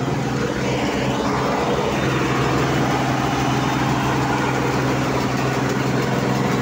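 Bizon combine harvester running with its threshing unit engaged and the engine on raised throttle: a steady mechanical din over a constant low hum.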